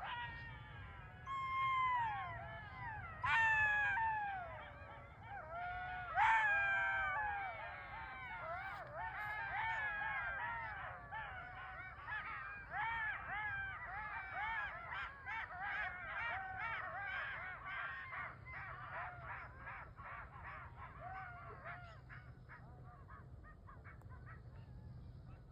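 Several animals howling together in long, falling, wavering wails. From about eight seconds in they build into a dense chorus of many short overlapping yips and wails, which thins out near the end.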